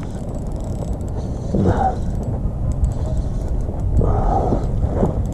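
Spinning fishing reel being wound in while the rod is bent into a hooked fish, giving a creaking, geared mechanical sound over a steady low rumble.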